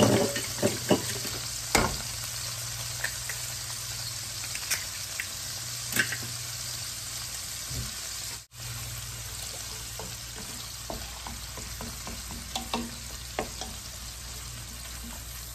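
Eggs and small shrimp sizzling steadily in hot oil in a nonstick pan. A few sharp knocks come in the first two seconds and again about six seconds in as eggs are cracked into the pan, and near the end a wooden spatula stirs and scrapes them.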